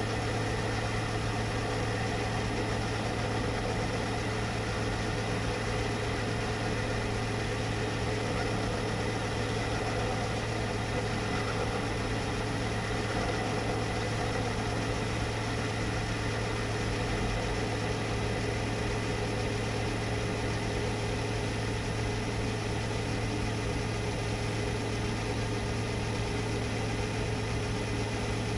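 Myford metal lathe running steadily with a constant hum, turning a small drive-shaft stub down to 12 mm.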